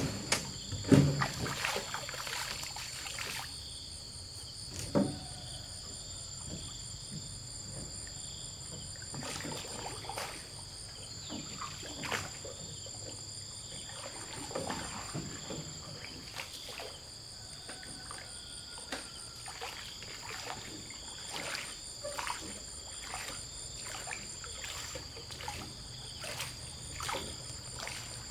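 Insects chirping in a steady high drone, with scattered knocks and splashes of water, the loudest knock right at the start.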